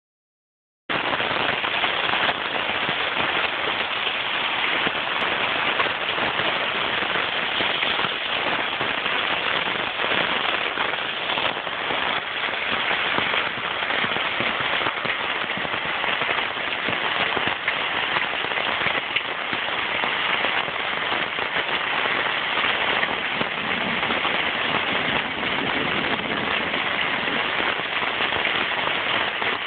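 Heavy rain pouring down in a steady, dense hiss of drops, starting about a second in.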